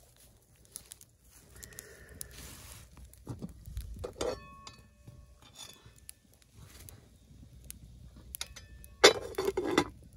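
Aluminium lid of a cooking pot clinking against the pot as it is handled: a ringing metallic clink about four seconds in, and a louder clatter of several clinks near the end as the lid is gripped and lifted.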